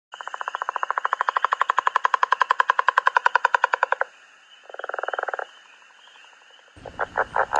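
Leopard frog call: a long snoring rattle of rapid, evenly spaced pulses lasting about four seconds, followed after a short gap by a shorter pulsed burst.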